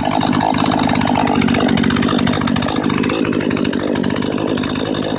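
Husqvarna two-stroke chainsaw engine running steadily at a gentle, low throttle.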